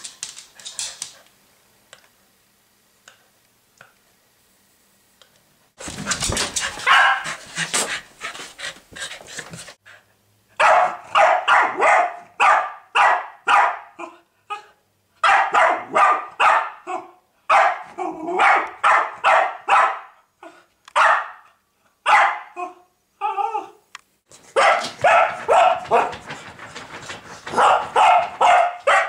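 Cavalier King Charles spaniel barking in quick runs of short, sharp barks, about three a second, with brief pauses between the runs. The barking starts after a few nearly quiet seconds.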